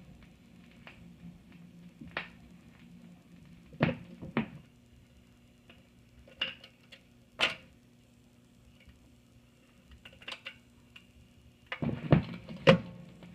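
Record changer of a 1962 Columbia Model 7001 console phonograph at the end of a record: scattered clicks from the stylus in the run-out groove over a faint steady motor hum, then a cluster of mechanical clunks near the end as the changer cycles to the next record.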